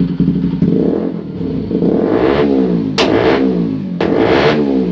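Bajaj Pulsar's single-cylinder engine running through a freshly fitted SC Project-style aftermarket exhaust on a welded bend pipe in place of the stock silencer. It idles steadily, then is blipped about four times, the note rising and falling each time; the exhaust is very loud.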